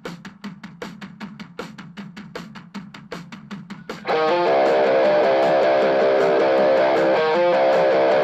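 A quiet rock drum beat with quick even ticks, then about four seconds in a loud, distorted electric guitar riff through a Boss Katana amp comes in abruptly over it.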